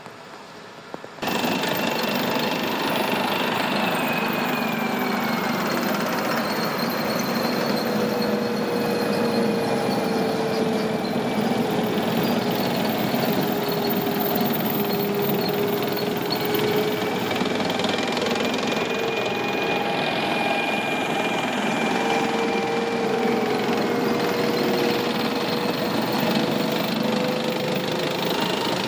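M1 Abrams tanks on the move: steel tracks clattering without a break, with the whine of the gas-turbine engines drifting slowly up and down in pitch. It comes in loud about a second in, after a short quieter stretch.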